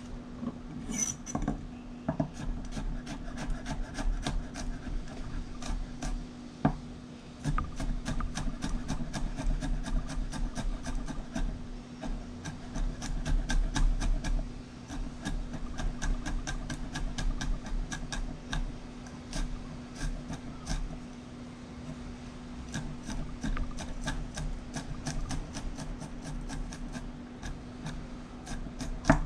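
Knife cutting food on a wooden cutting board: quick, irregular scraping and tapping strokes, several a second, over a steady low hum.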